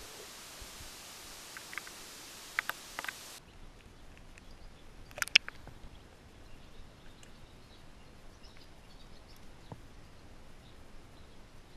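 Steady hiss with a few sharp clicks, cut off suddenly after about three seconds. Then a quieter background with scattered small ticks and clicks, and one loud cluster of clicks about five seconds in.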